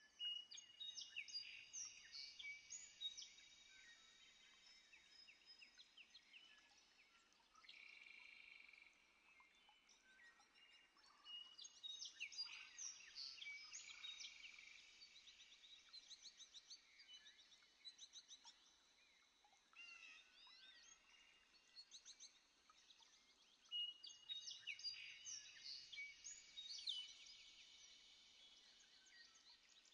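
Faint chorus of animal calls: many overlapping high chirps, whistles and short rising glides, busiest at the start, in the middle and again near the end.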